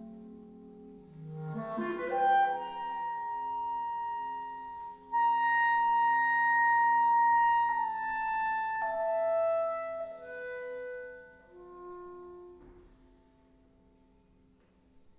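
Clarinet playing a slow solo line in contemporary chamber music: a quick rising run, a long held high note that swells suddenly louder, then falling notes that die away, over faint sustained low tones.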